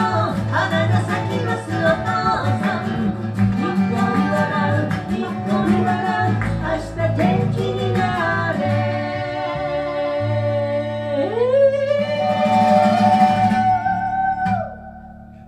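A small band plays a song with singing over keyboard and guitars. From about eight seconds in they hold the closing chord while a voice slides up into one long note, and everything stops together about a second before the end, the chord ringing away.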